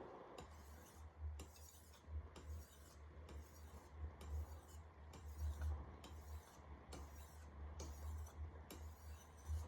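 Wüsthof Classic chef knife's steel edge being drawn across a wet splash-and-go whetstone in light, even deburring strokes, about one and a half a second, each a short hiss of abrasion. The pressure is kept light, as it should be when deburring.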